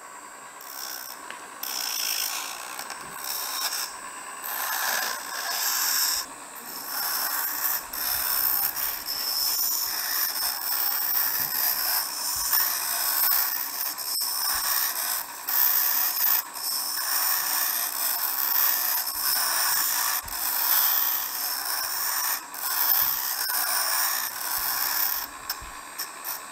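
Dremel rotary tool running at low speed with a grinding stone, a steady high whine, while the small metal spout of a soap dispenser pump is pressed against the spinning stone again and again. The grinding of the chrome-plated metal swells and fades with each touch, preparing the surface for soldering.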